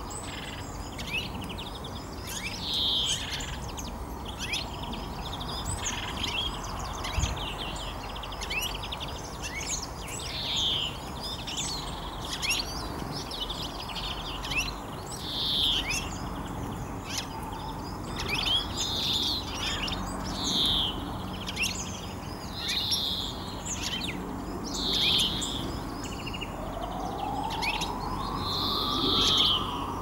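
Small songbirds calling and twittering: a slurred, descending call repeats every few seconds over a scatter of rapid, high chirps.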